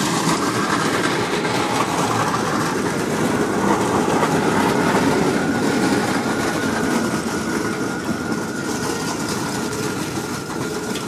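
Spinning Chinese yo-yo (diabolo) whistling: a single steady high tone that comes in about three seconds in and holds, over a steady background rumble.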